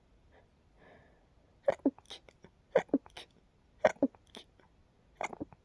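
A person's sneeze getting stuck: short, sharp hitching catches of breath in quick pairs, about one pair a second, as a tickle builds without the sneeze coming out.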